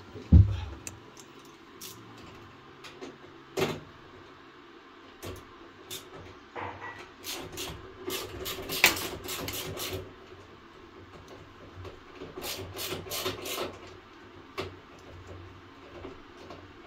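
A hard thump just after the start, then scattered clicks, taps and knocks, with two busier clusters of sharp clicks in the middle and later on, as washing machine parts and screws are handled during a drain pump repair.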